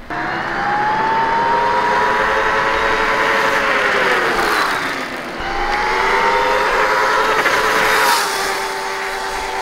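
Electric dirt bike's QS138 motor whining under way. The whine rises in pitch as the bike accelerates, drops away about halfway through, then comes back and climbs again, over a rushing noise.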